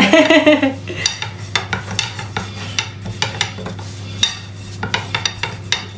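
A long, thin wooden rolling pin (a Turkish baklava rolling stick) rolling out a dough wrapper on a floured worktop, with a run of irregular clicks and knocks of the wood against the counter.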